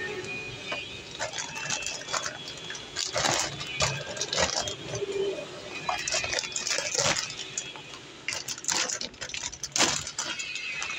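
Clear plastic bag crinkling and rustling as it is handled and pulled open around a toy excavator, in irregular crackles.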